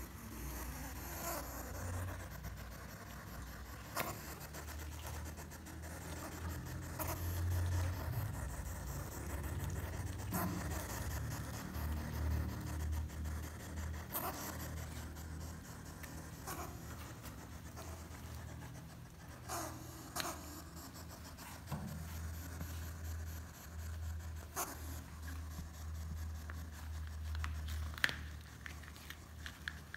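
A rolled-up hedgehog huffing and puffing as a hand prods it, with sharp clicks every few seconds over a low rumble of handling noise.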